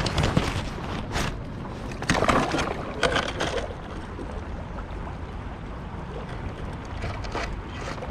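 Kayak paddle strokes splashing in river water, about one a second for the first few seconds, then a quieter stretch of water lapping at the hull with a couple of lighter strokes near the end, over a steady low rumble.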